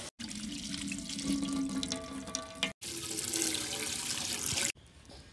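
Milk pouring in a stream into a cooking pot, broken by two abrupt cuts, then much quieter for the last half second.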